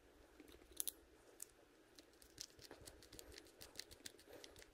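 Faint, scattered small clicks and ticks of a baitcasting reel's small screws and metal parts being handled and fitted by hand.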